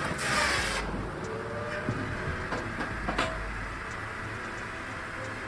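Multitech 2040 firewood processor working: its machinery runs with a low steady rumble. There is a burst of hiss in the first second, scattered clicks, and a sharp knock about three seconds in.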